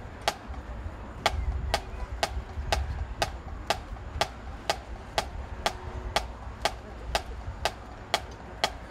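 Tempo count-off clicks setting the band's tempo: sharp, even ticks about two a second, over a low rumble of crowd and open air.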